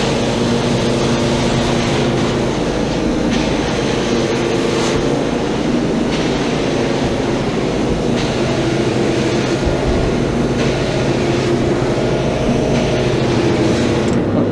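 Advance ET 700 portable carpet extractor (500 psi pump, with water heater) running steadily, just switched on, its motors giving an even, unchanging drone with a steady hum under it.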